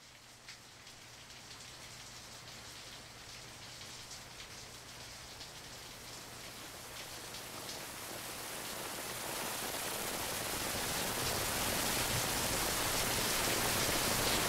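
Rain falling: a steady hiss with scattered drop ticks that grows steadily louder as it builds into a downpour.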